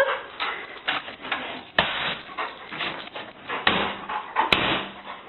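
Irregular knocking and scuffling noises, with two sharp clicks.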